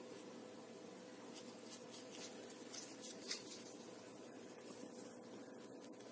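Faint scratching and light clicks, clustered between about one and three and a half seconds in with the sharpest click near the middle, over a low steady room hum.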